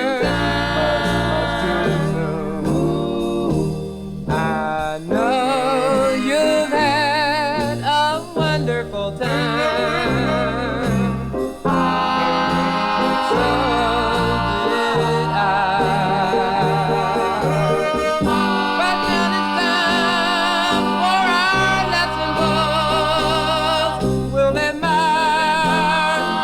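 A vocal group's record, transferred from a 45 rpm single, playing a stretch with no lyrics sung: a wavering, vibrato lead line over a steady bass and band.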